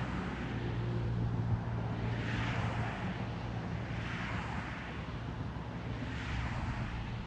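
A steady low drone of distant engine noise, with a rushing hiss that swells and fades every couple of seconds.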